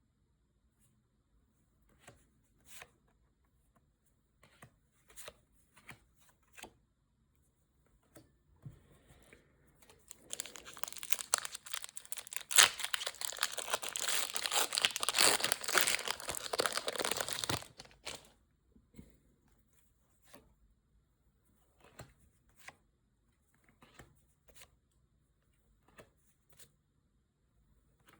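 Plastic or foil packaging torn open and crinkled for about seven seconds, midway through, with scattered light taps and rustles of cards and packaging being handled before and after.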